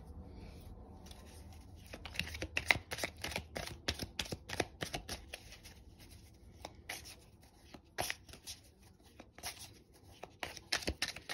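A deck of tarot cards being shuffled by hand: a run of quick flicking and slapping card sounds starting about two seconds in, thick for a few seconds, then thinning to scattered clicks with a few short flurries near the end.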